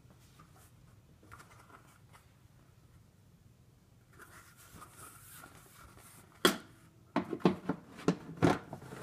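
The domed lid of an Electrohome Apollo 860 record player being handled and fitted onto its round base: a soft scraping, then a run of sharp knocks and clunks, the first about two and a half seconds before the end and several more close together near the end, as it is set in place.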